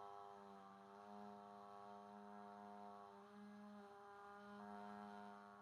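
A woman holding a quiet, steady 'ah' vowel at one unchanging pitch, without a break. It is a sustained-phonation task, the vowel held as long as she can while her voice is listened to for wet gurgling.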